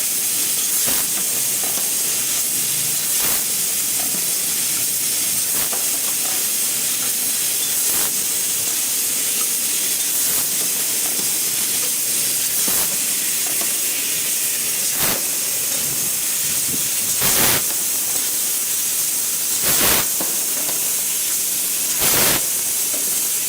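CNC laser tube cutting machine running: a steady hiss, with a short burst about every two and a half seconds, the last few louder.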